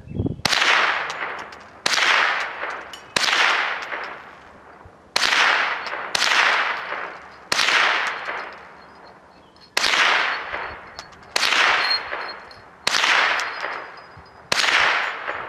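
Ten single shots from a .22 LR Ruger 10/22 semi-automatic rifle with a Keystone Revolution barrel, fired at an even pace one to two seconds apart, each with a long fading echo. Steel spinner targets ring as they are hit.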